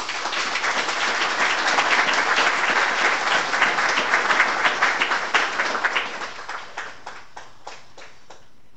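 Audience applauding: dense clapping that builds over the first couple of seconds, holds, then thins to a few scattered claps and stops near the end.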